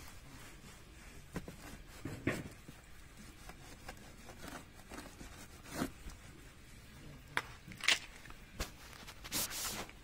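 Wet chenille microfiber wash mitt rubbing and scrubbing a car's front bumper and chrome trim: irregular short scuffs and scrapes, with a longer rub near the end.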